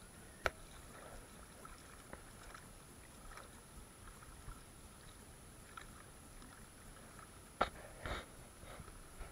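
A hooked garfish being reeled in and splashing at the water's surface. The sound is faint, with scattered light ticks and a few sharp clicks and splashes, the loudest about half a second in and two more near the end.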